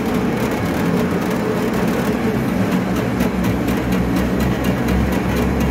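350-watt electric cassava slicing machine running with a steady hum while a cassava root is pushed into its feed chute against the spinning blade, with fast light ticking from the cutting.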